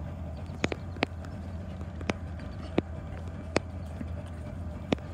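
Water slapping in the gap between a pontoon boat and a wooden dock: six sharp, irregular slaps over about five seconds, over a steady low hum.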